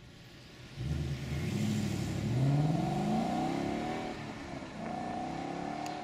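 2012 Ford Mustang Boss 302's 5.0 L V8 on its factory exhaust, side-exit pipes still closed off by restrictor plates, accelerating hard away. The engine note climbs in pitch from about a second in, eases briefly near four seconds in, then climbs again.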